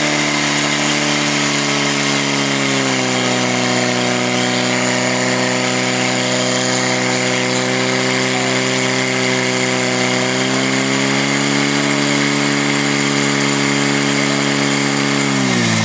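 Portable fire pump engine running at high revs, driving water through the attack hoses. Its pitch climbs about three seconds in, holds steady, then falls away near the end as the revs drop.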